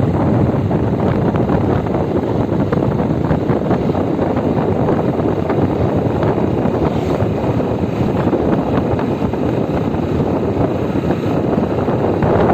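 Steady rushing noise of wind buffeting the microphone, mixed with tyre and road noise from a vehicle moving quickly over asphalt.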